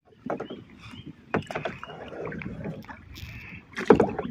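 Kayak paddling on a river: water splashing and dripping from the paddle, with a few sharp knocks, the loudest about a second and a half in and again near the end.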